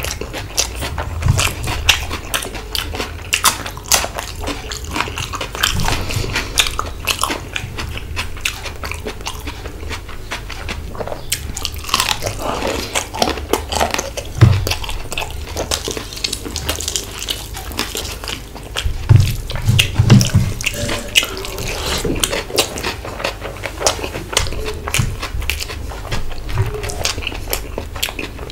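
Close-miked eating: wet chewing and mouth sounds of a person eating rice and mutton curry by hand. Many small, irregular wet clicks run throughout.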